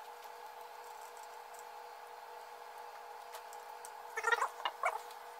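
Faint steady hum, with a few brief squeaky clicks about four seconds in.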